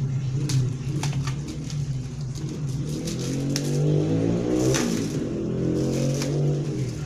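Thin plastic shrink-wrap crackling and crinkling in short bursts as it is pulled off a hardcover book, over the steady hum of an engine running that rises and falls in pitch around the middle.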